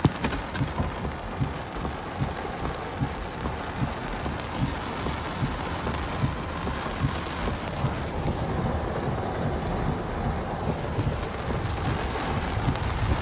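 Torrential rain pouring onto a flooded street: a steady hiss of heavy rainfall, with many small knocks of drops landing close by.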